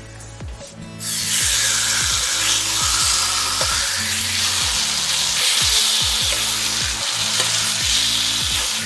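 Beef steak laid into hot melted butter and oil in a pan, setting off a loud frying sizzle that starts suddenly about a second in and keeps going steadily. Background music with a steady beat plays underneath.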